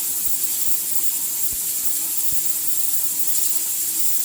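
Pressure cooker venting steam with a steady high hiss, showing the pot is up to pressure and cooking, with faint low knocks about once a second.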